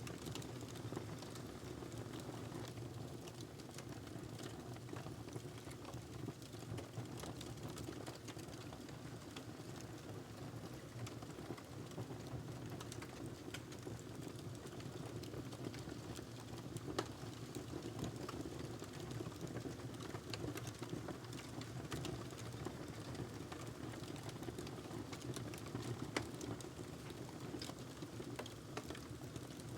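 Wood fire burning in a fireplace: a steady low rumble of flames with frequent small crackles and pops. Two louder pops come, one a little past halfway and one near the end.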